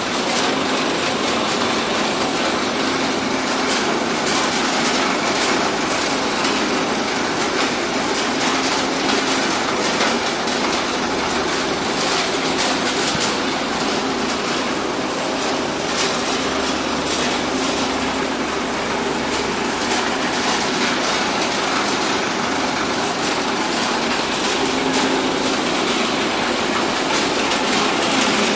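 Betel nut (supari) cutting and grading plant running: electric motors and belt-driven cutting machines and screens giving a steady mechanical rattle, dense with fine clicking.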